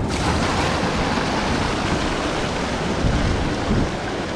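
Seawater rushing and fizzing as a wave surges over the rocks and floods a tidal rock pool, a dense steady wash that starts abruptly.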